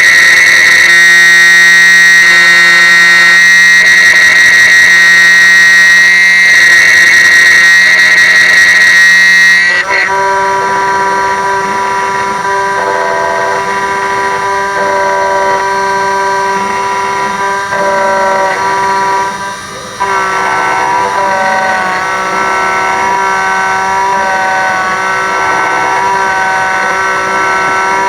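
Miracle A7 key machine's cutter spindle whining steadily as it mills a GM 10-cut HU100 laser-cut key. The whine drops to a lower, quieter tone about ten seconds in and dips briefly near the twenty-second mark.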